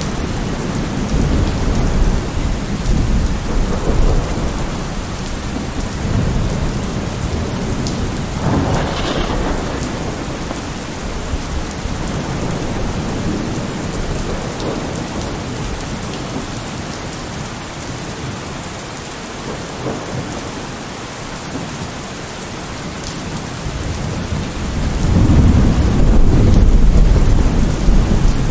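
Steady heavy rain with rolling thunder. A sharp crack comes about nine seconds in, and a loud deep rumble builds near the end.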